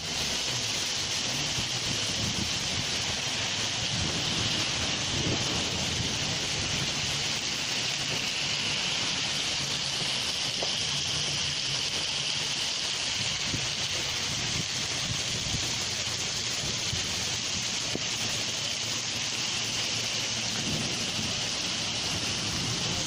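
Heavy rain pouring onto pavement and parked cars, a dense, steady hiss that holds at one level throughout.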